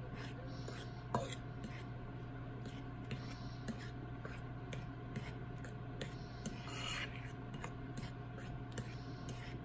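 Metal spoon stirring banana and egg batter in a ceramic bowl: soft, wet scraping against the bowl with faint irregular clicks, one slightly sharper click about a second in.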